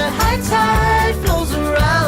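Background pop music with a beat, a bass line and a melody line.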